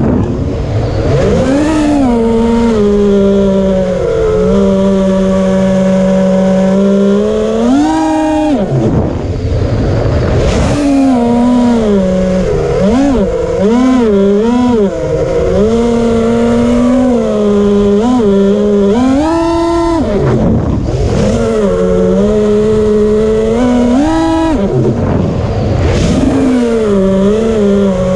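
An FPV quadcopter's DYS Samguk brushless motors are whining and buzzing, the pitch rising and falling with the throttle. There are several sharp dips and climbs in pitch. The buzzing is one that the pilot calls weird.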